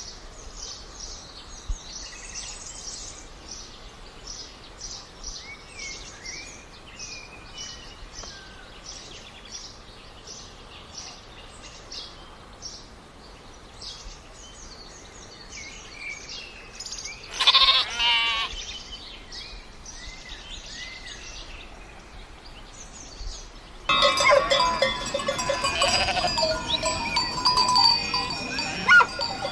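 Small birds chirping rapidly over a pasture, with one loud, wavering sheep bleat about two-thirds of the way through. Near the end the sound turns to a large flock of sheep, many bleating at once, with bells ringing among them.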